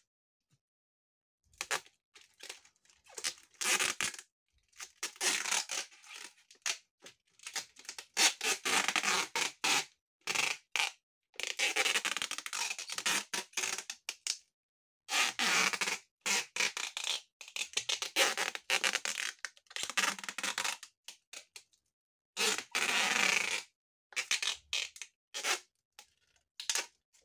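Adhesive tape being pulled off its roll again and again, each pull a noisy rip lasting a second or two, with short pauses between strips as it is stuck around a plastic bucket lid.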